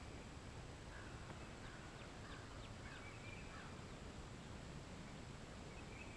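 Faint outdoor ambience: a steady low hiss with scattered bird calls, a run of short chirps and slurred notes about one to four seconds in.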